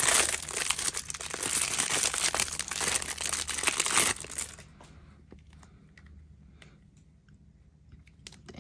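Clear plastic wrapper crinkling loudly as hands pull it open and off a toy figure and its stand. It stops suddenly about four seconds in, leaving only a few faint clicks.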